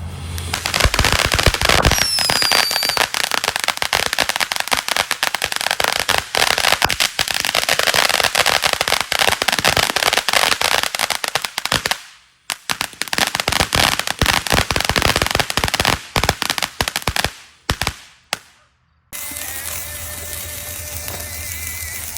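A long string of firecrackers going off in rapid, crackling succession, dense pops for many seconds with a brief break about twelve seconds in. It then thins to a few scattered pops and stops about nineteen seconds in.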